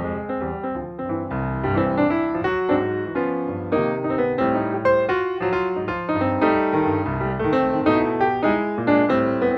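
Piano music, with many notes in quick succession.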